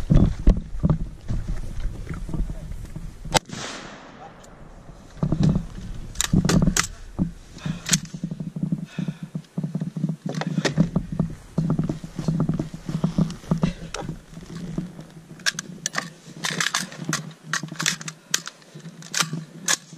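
M4 carbine fired in single shots: scattered shots with pauses between them, then a quick run of shots near the end.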